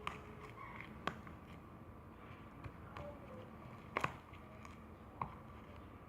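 Thickened glue slime being stirred in its container: faint sticky scraping with a few sharp clicks and taps of the stirrer against the container, including a quick double tap about four seconds in.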